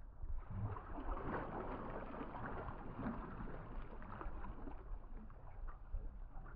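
Water sloshing and splashing around a small fishing boat, a steady noisy wash with a low rumble underneath.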